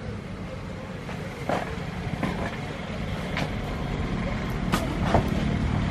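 An engine running steadily with a low drone, and a few short sharp clicks scattered over it.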